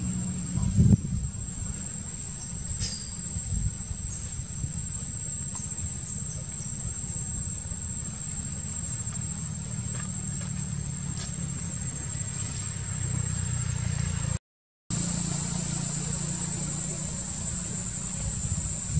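Steady high-pitched drone of insects over a low, steady rumble, with a few faint clicks. The sound cuts out for about half a second some fourteen seconds in, then comes back with the drone louder.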